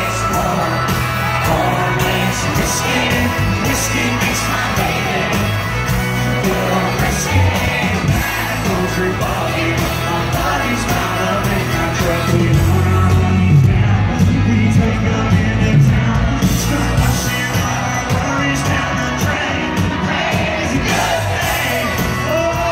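Live country band playing loud with drums and a lead singer, with the crowd's voices yelling and singing along in the mix.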